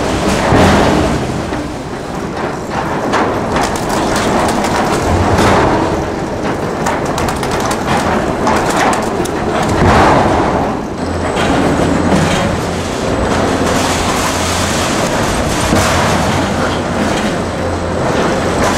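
Sawmill log-handling conveyors and steel machinery running with a continuous clatter, broken by repeated knocks of logs against steel. A steady low hum joins about eleven seconds in.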